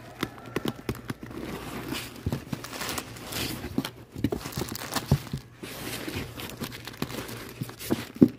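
Comic books being flipped through by hand in a shop box: irregular rustling with many short soft clicks and knocks.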